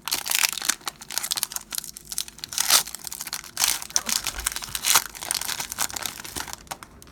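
Foil trading-card pack wrapper being torn open and crinkled by hand, in a dense run of irregular crackles with a few louder rips.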